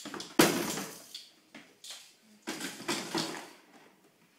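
Plastic toy bins banged and slid across a wooden floor: a sharp knock about half a second in, trailing off into scraping, then a second burst of scraping and rattling about two and a half seconds in.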